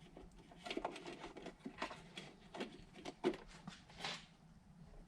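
Scattered light clicks, taps and a short rustle of hands handling a thin clear Lexan polycarbonate lens against an instrument cluster during a trial fit.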